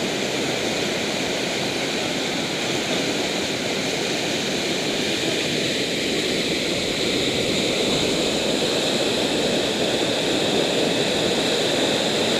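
Whitewater of a mountain river rapid rushing steadily, a loud continuous roar of water that grows slightly louder toward the end.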